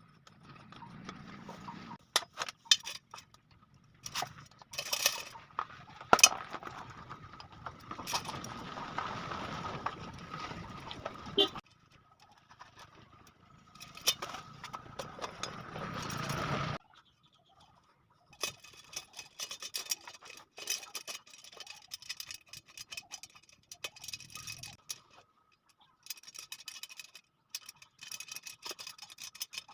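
Light metallic clicks and ticks of wire spokes being handled and worked into a new drum hub and rim during a motorcycle wheel build. Stretches of steady hiss come in twice and cut off abruptly.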